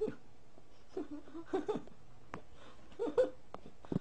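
A person laughing quietly in short bursts of three or four quick 'ha' pulses, about once every second and a half, with a few light knocks in between.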